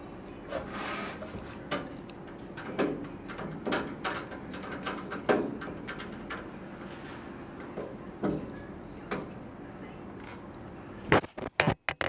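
Screwdriver backing a screw out of a steel PC case's side panel: scattered small clicks and scrapes of the tip and screw, with handling knocks on the metal case, over a low steady hum. Near the end comes a quick run of loud, sharp clicks.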